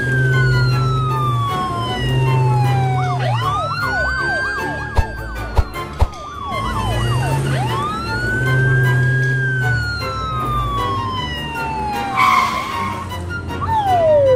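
Police siren wailing in slow rising and falling sweeps, switching briefly to a fast yelp about three seconds in. Background music with a low bass line runs underneath, and there is a short hiss near the end.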